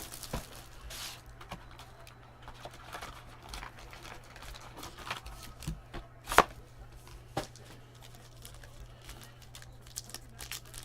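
Trading card packs and cards being handled: wrappers crinkling and tearing, with light clicks and one sharp tap a little past halfway. A steady low hum runs underneath.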